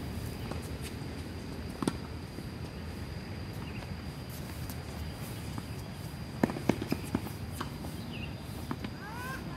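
Tennis balls struck by rackets and bouncing on a hard court during a rally: a single sharp pock about two seconds in, then a quick run of several louder pocks around six and a half to seven seconds. A faint steady high tone runs underneath, and there is a short rising squeak near the end.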